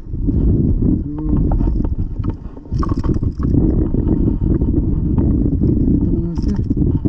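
Wind buffeting the microphone in a steady low rumble, with a few splashes and clicks as a small hooked fish is lifted from the water and handled.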